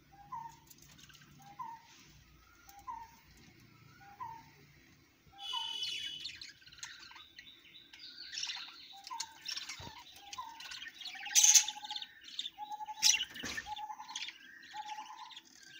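Budgerigars calling in a cage. A short, rising note repeats about once every second and a bit. From about five seconds in, busy higher-pitched chirping and chattering joins it, with the loudest chirps near the end.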